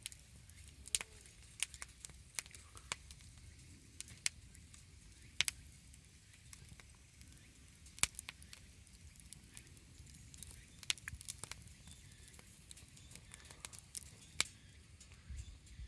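Wood campfire crackling: irregular sharp pops and snaps every second or so over a low steady rumble.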